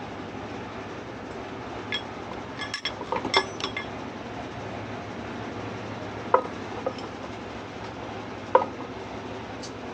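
Metal tools and parts clinking against each other: a quick cluster of light clinks about two to four seconds in, then single sharper clinks three more times, over steady background noise.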